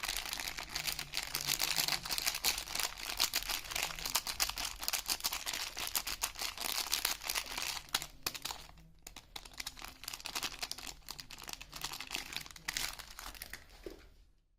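Soap wrapping being unwrapped and peeled by hand, a dense run of crinkling and crackling with some tearing. It pauses briefly about two-thirds of the way in, then carries on more quietly and fades out.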